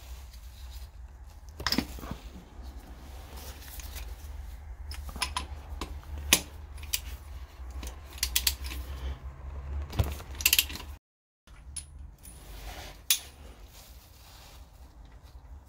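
Metal clicks and clinks of a ratchet wrench and spark-plug socket being worked on a UAZ 469 engine: scattered sharp clicks, with a few quick clusters of clicks, over a steady low hum.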